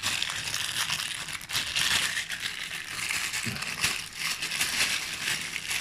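Parcel packaging being torn open by hand, crinkling and rustling with many small crackles.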